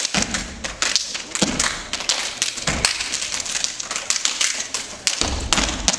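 A step team stepping: dress shoes stomping on the stage with claps and slaps in a fast run of sharp strikes, broken by heavier unison stomps about four times.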